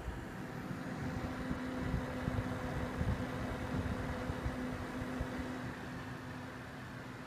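Coil whine from the chokes of an ASUS STRIX GTX 970 DC2OC graphics card: a steady buzzing tone with overtones, over steady fan noise. The tone fades a little near the end.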